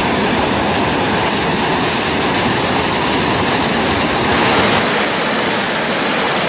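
Rushing water of a small waterfall cascading over rock into a pool: a loud, steady rush that swells briefly about four and a half seconds in.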